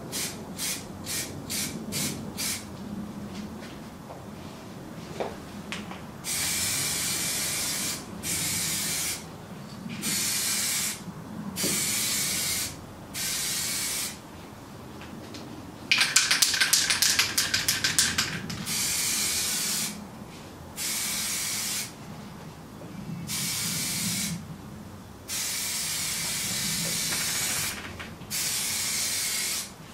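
Aerosol can of Plasti Dip rubber coating spraying in repeated short bursts, each hiss about one to two seconds long with pauses between, after a run of very quick taps at the start. About halfway through, one longer burst is louder and sputters.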